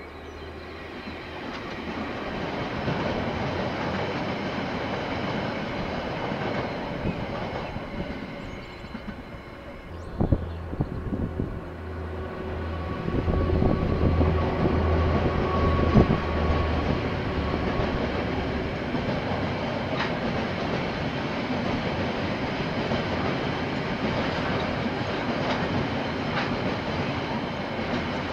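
KiwiRail freight trains passing on the line: the rumble of an approaching train grows over the first ten seconds. After a sudden break, a locomotive's low engine drone passes, followed by the steady rolling of container wagons.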